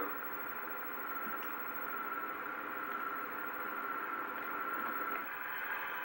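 Steady hiss with a thin, steady high whine from an old videotape's soundtrack playing through a television speaker; the hiss changes about five seconds in.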